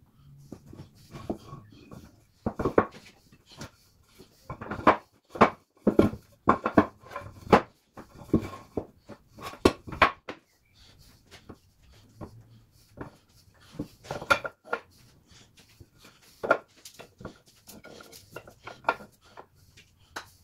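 Wooden strips knocking and clacking against one another and the bench as they are set down across pipe clamps and pushed together, in irregular runs of sharp knocks.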